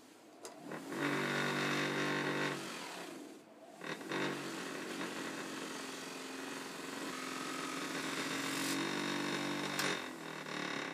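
Bench grinder fitted with cloth buffing wheels running, a steady electric motor hum under the rush of the spinning mops as the antler knife handle is polished on them. The sound dips briefly about three seconds in, picks up again and stops suddenly at the end.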